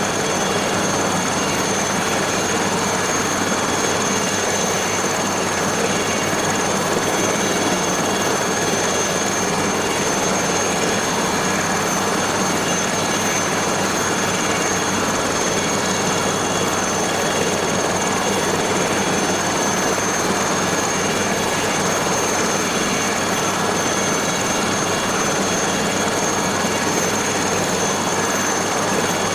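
Aérospatiale SA 315B Lama helicopter running steadily: dense engine and rotor noise with a steady high turbine whine on top.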